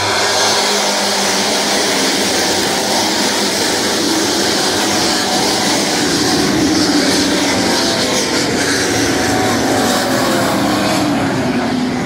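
A field of full-fendered pro stock dirt-track cars running hard around the oval. Their engines blend into a steady, loud din, with single engines rising and falling in pitch as they accelerate and lift through the turn.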